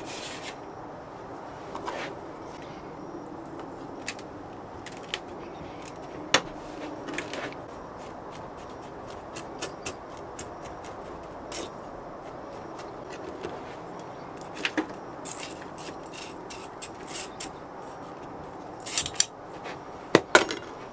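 Hands rubbing and packing casting sand into a metal flask ring on a metal tray: a steady rubbing with scattered scrapes and sharp taps, a cluster of them near the end.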